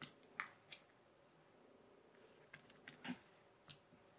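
A few sharp little clicks and taps from a small screwdriver and the fan motor's parts being handled over paper. Three come in the first second, a cluster at about two and a half to three seconds, and one more near the end.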